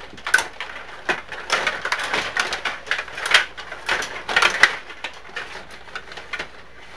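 Table hockey game in play: rapid, irregular clacking and rattling of the plastic players and control rods, with the puck knocking around the rink.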